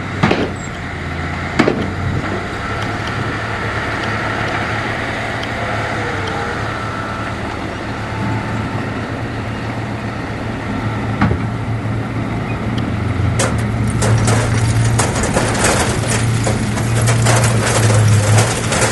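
Heavy diesel earthmoving machinery engine running steadily, with a few sharp knocks and, in the last third, a spell of dense metallic clatter.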